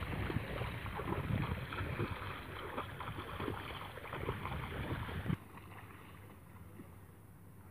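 Barefoot footsteps splashing through shallow water in quick, irregular splashes. They cut off suddenly about five seconds in, leaving a faint steady outdoor hush.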